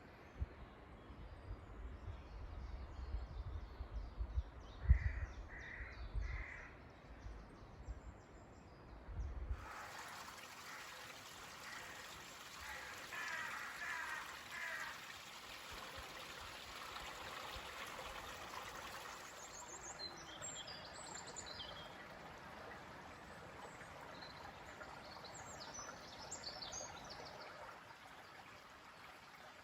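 Countryside outdoor ambience: scattered bird calls and snatches of birdsong over a steady hiss. A low rumble with a few knocks underlies the first ten seconds or so, then the sound changes abruptly to a cleaner hiss with higher bird notes.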